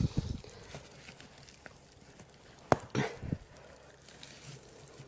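Clicks and knocks of hands working on a couch's metal zigzag springs and wooden frame: a clatter at the start, a single sharp click a little past halfway, then a few quick knocks.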